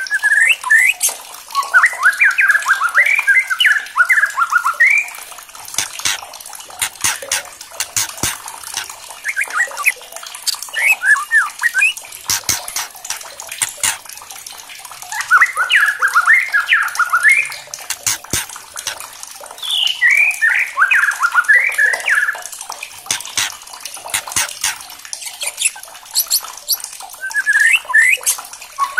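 White-rumped shama singing in repeated bursts of fast, warbling, rapidly changing notes a few seconds long, with pauses between them. Sharp clicks come in between the phrases.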